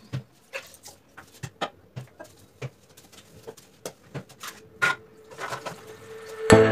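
Irregular clicks and knocks of plastic cleaning bottles and a scrub brush being handled at a washbasin during cleaning. Loud music comes in near the end.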